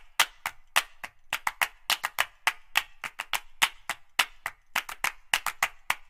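A quick, uneven run of dry, sharp clicks, about five a second, over dead silence with no room sound: a percussive track laid in by editing in place of the original audio.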